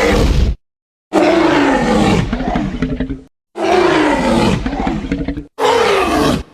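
Creature roar sound effects for the Primitive Chameleon: the tail of one roar about half a second in, then three more roars of one to two seconds each, their pitch sliding downward. Each starts and stops abruptly, with dead silence between them.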